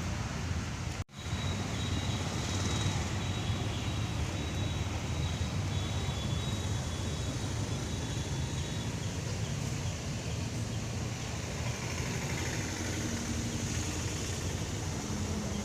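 Steady background rumble of road traffic, with a brief dropout in the sound about a second in.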